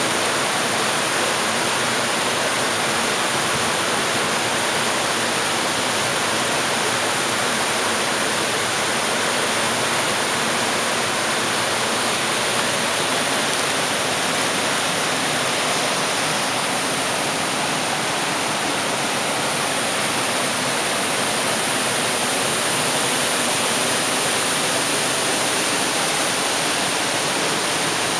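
The Rhine in flood pouring through an open weir gate and churning into white water below: a steady, loud rush of water that does not change.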